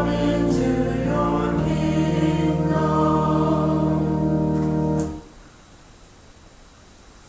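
Choir singing with organ accompaniment, holding a sustained chord over a steady bass note. The chord stops abruptly about five seconds in, leaving quiet room tone.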